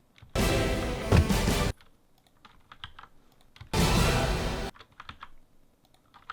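Two short snatches of the show's music, each starting and cutting off abruptly as playback is started and stopped in the show-design software. Soft keyboard and mouse clicks fall in the gaps between them.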